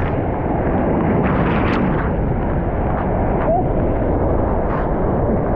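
Whitewater rapids rushing loudly and steadily around a capsized inflatable raft, with a few short splashes.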